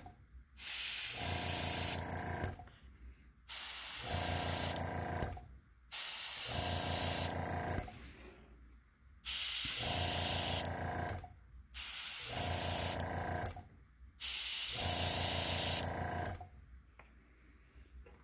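Airbrush spraying paint in six short bursts of about two seconds each: a hiss of air with a low hum under each burst.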